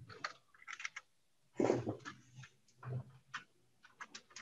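Typing on a computer keyboard: scattered, irregular keystrokes, a few of them louder near the middle.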